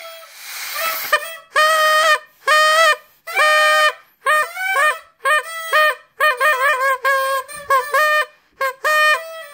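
A buzzy toy horn blown loudly in a long string of flat honks, some held about half a second. The honks come quicker and shorter from about halfway in, and the pitch steps between two notes now and then.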